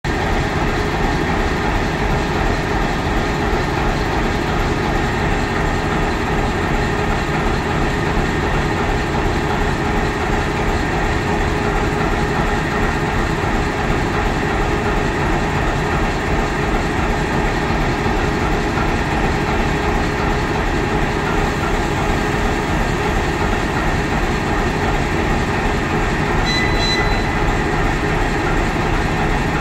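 ChME3 diesel shunting locomotive's engine, a ČKD six-cylinder diesel, running steadily while the locomotive stands: a constant drone with a few steady tones running through it.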